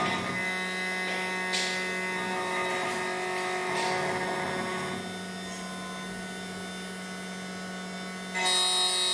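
SEC-E9 key cutting machine's cutter motor running as it cuts a Toyota TOY43 key blank, a steady hum that grows louder and brighter about eight seconds in.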